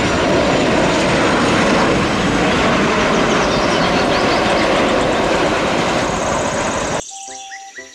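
Jet engines of a Boeing 737-800 airliner at takeoff power as it rolls and lifts off the runway, a loud, even rush of engine noise. It cuts off abruptly about seven seconds in.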